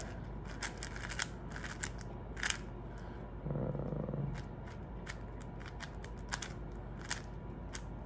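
Plastic 4x4 speed cube being turned fast, its layers clicking and clacking in quick irregular snaps.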